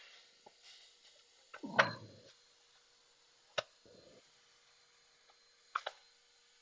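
Scattered light clicks and knocks of small items being moved and handled, the loudest about two seconds in, over faint room tone.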